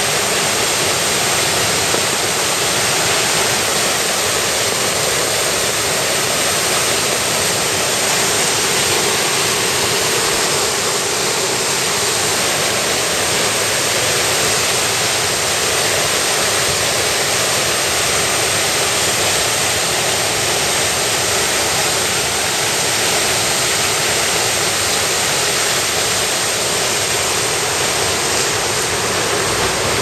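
A river in flood rushing and churning white around concrete bridge piers: a loud, steady rush of water with no let-up.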